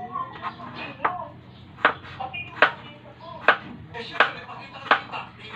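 Kitchen knife chopping through chayote onto a cutting board: six sharp knocks, a little under a second apart.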